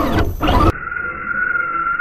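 Electric motor of a Traxxas RC truck whining as it rises and falls in pitch, mixed with loud wind and snow noise from a camera riding on the truck. About two-thirds of a second in the sound cuts abruptly to a thinner, duller recording with a steady, slightly wavering high whine from the truck.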